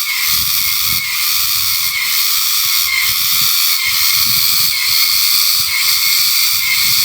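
A loud, shrill, steady high-pitched drone that swells in a regular pulse about once a second: the unexplained strange sound, likened to a person screaming.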